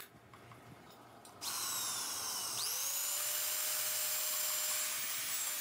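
A handheld electric drill starts up about one and a half seconds in, pressed onto a valve in an engine cylinder head. About a second later its motor whine rises in pitch and then holds steady.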